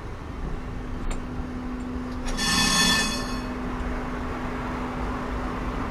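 Tram rolling along street track with a steady low hum from its drive. About two and a half seconds in, a bright ringing tone sounds for about a second, the loudest thing heard.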